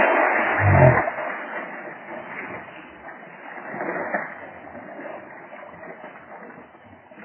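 Stream water splashing and churning around a person in the shallows, loud at first and dying down after about a second, with a low thump just before it fades.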